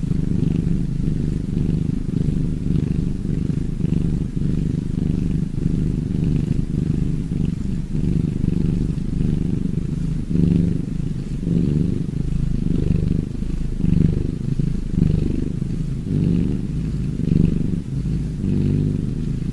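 Domestic cat purring close up: a steady low rumble that swells and eases every second or two with its breathing.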